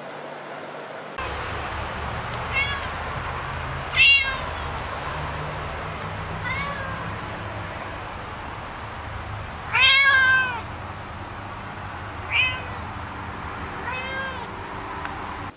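A cat meowing about six times. The two loudest meows come about 4 and 10 seconds in, and the one near 10 seconds is the longest. A steady low hum runs under the meows.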